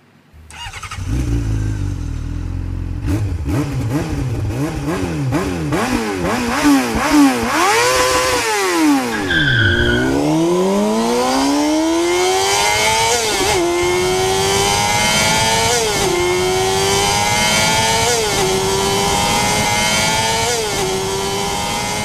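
Engine sound effect: an engine starts and is blipped up and down in quick revs, then accelerates hard, its pitch climbing and dropping back at each of four gear upshifts.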